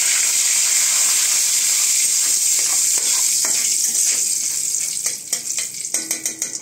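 Water-washed bay leaves sizzling and spitting in hot mustard oil in a kadai, the water on the leaves making the oil splutter, while a spatula stirs them. The loud sizzle fades after about five seconds into scattered crackles.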